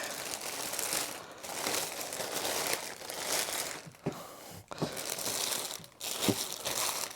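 Packaging crinkling and rustling as an item is handled and unpacked, with a few light knocks in the second half.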